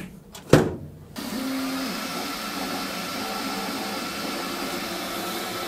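A sharp click as a magnetic hold-down clip snaps onto the laser bed, then from about a second in the steady whir of an xTool S1 40 W enclosed laser cutter's fans running as it starts cutting birch plywood.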